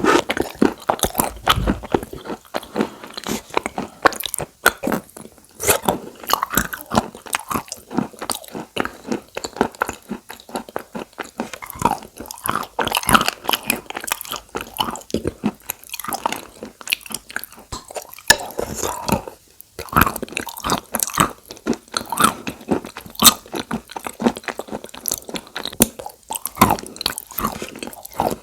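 Close-miked chewing and crunching of chalk coated in wet clay paste: dense, irregular crunchy crackles with brief pauses between bites.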